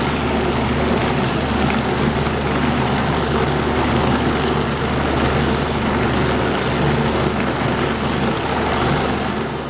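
Mainca CM-41 bowl cutter running, its bowl turning and knives chopping through meat emulsion: a loud, steady mechanical hum and whir that fades out near the end.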